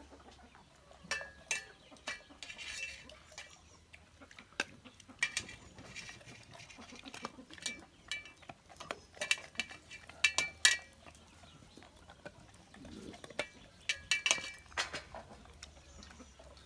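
A dog eating a meaty bone: scattered crunches and clicks, with short metallic clinks of a food dish in clusters.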